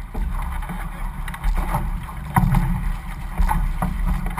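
Outrigger canoe crew paddling in rhythm, the blades catching the water with a splash about once a second, over a steady low rumble of wind on the microphone.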